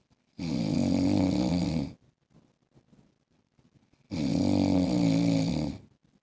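An adult man snoring in his sleep: two long snores, each about a second and a half, about four seconds apart.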